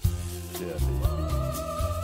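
Background music: a bass line and a beat, with a lead tone that slides up about halfway through and then holds.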